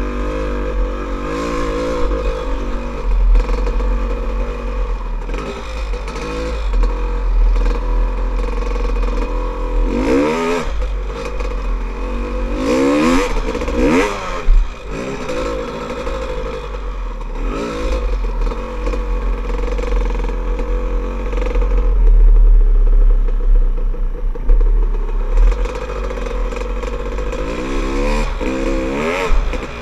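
Dirt bike engine running as the bike is ridden along a trail, the revs rising and falling several times as the throttle is worked, with wind rumble on the helmet-mounted microphone.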